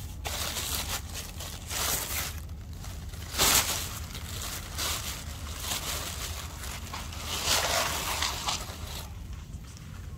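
Dry rustling and crinkling noise in several bursts, the loudest and shortest about three and a half seconds in, quieter near the end.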